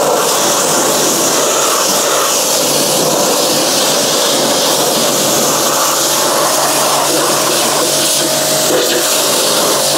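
Pressure washer jet spraying steadily into a car's rear wheel arch and coil spring, blasting them clean: a loud, even hiss over a faint steady hum.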